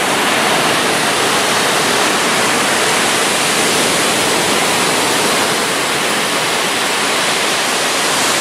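Pacific Ocean surf breaking and washing on the beach: a steady, unbroken rush of water noise.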